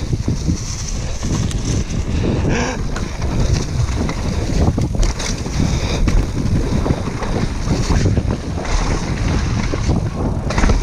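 Wind buffeting the microphone over the rumble and rattle of a downhill mountain bike's tyres, frame and chain running fast over a dirt trail strewn with dry leaves, with many small knocks from the bumps. A short high-pitched squeal or call sounds about two and a half seconds in.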